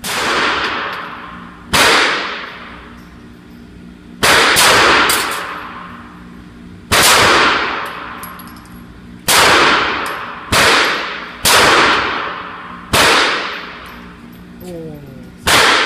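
Pistol shots echoing in an indoor shooting range: about nine single shots fired at an irregular pace, one to three seconds apart, each with a long reverberant tail.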